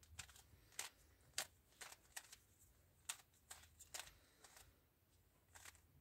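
Plastic 3x3 speed cube being turned by hand: its layers snap round in a quick, irregular run of about a dozen sharp clicks, with a short pause before a couple more near the end.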